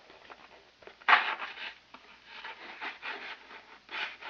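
Rubbing and scraping of a homemade squishy vending machine's mechanism being worked by hand, with a loud scrape about a second in and another near the end. The mechanism is sticking because the machine is overloaded with squishies and does not work.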